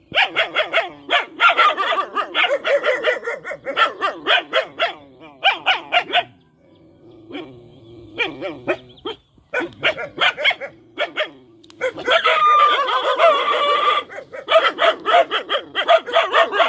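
Several young dogs barking together in quick, overlapping barks. The barking eases off for a few seconds to softer, sparser sounds about a third of the way in, then picks up again and runs dense and continuous to the end.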